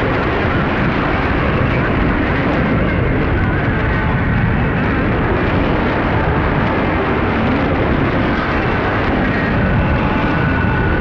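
Shortwave radio receiver on 6015 kHz putting out a steady rushing noise with faint steady tones running through it. The uploader suspects it is a STANAG military data transmission.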